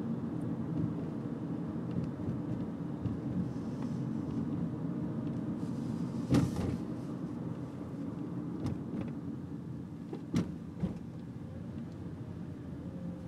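Steady low rumble of a car's engine and tyres heard from inside the cabin while driving slowly, with a few short sharp clicks, the loudest about six seconds in.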